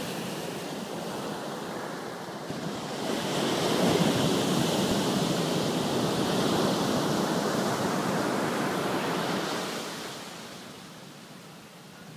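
Ocean surf breaking and washing up a sandy beach, swelling about three seconds in and falling away near the end.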